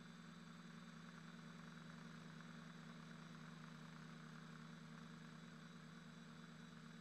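Faint, steady low hum of a quadcopter's electric motors and propellers in flight, unchanging throughout.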